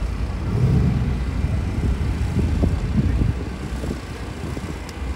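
Low, uneven rumble of outdoor street noise, easing a little after about three seconds.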